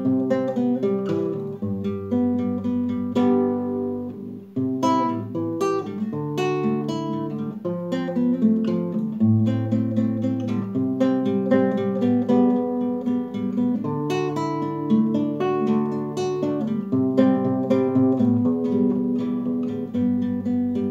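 Solo nylon-string classical guitar playing an instrumental passage of a vidala, plucking chords and a melody line with no voice.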